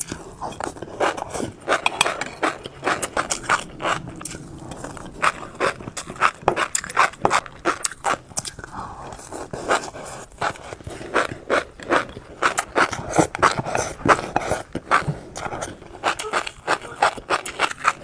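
Close-miked orange fish roe popping and crackling as it is chewed: many small, irregular pops and clicks, several a second.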